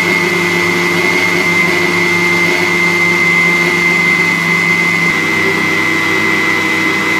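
Electric countertop blender running steadily at full speed, blending a thick mayonnaise-and-yogurt sauce in its jug: a loud, even motor noise with a constant high whine.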